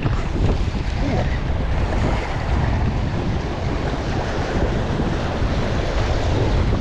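Wind buffeting the microphone over small waves washing against the jetty rocks, a steady rushing noise.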